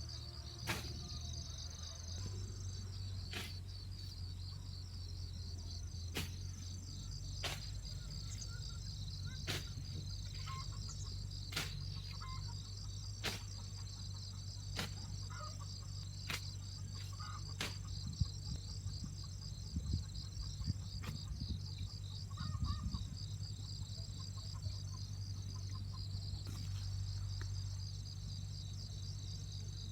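Insects chirping steadily in a fast, pulsing high trill, with sharp clicks every second or two over a low steady hum.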